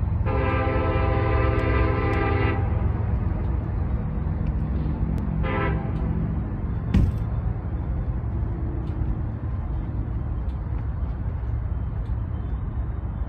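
Union Pacific freight locomotive's multi-chime air horn: one long blast of about two and a half seconds, then a short toot about five seconds in, over the steady low rumble of the diesel engines. A single sharp knock about seven seconds in.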